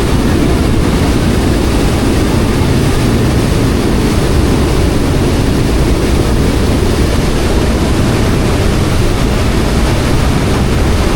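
Passenger ferry under way: a steady low rumble of its engines mixed with water rushing past the hull.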